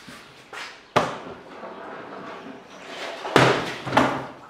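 Bread dough being slapped and pressed down by hand on a steel work table: a sharp slap about a second in, then a louder run of slaps and thumps a little after three seconds.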